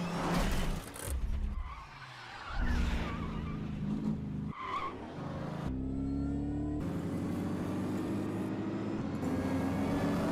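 Film car-chase sound: car engines revving hard with tyres skidding and squealing. The engine note jumps in pitch at each cut, with short squeals about two and a half and about five seconds in.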